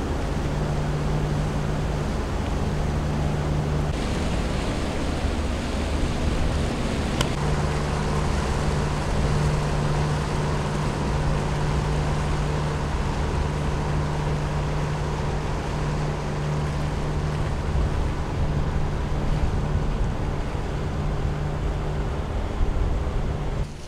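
Leopard 45 catamaran's diesel engines running steadily under way, a low even hum, with wind noise on the microphone and water rushing past the hull. The hum drops out for a few seconds about four seconds in, then returns.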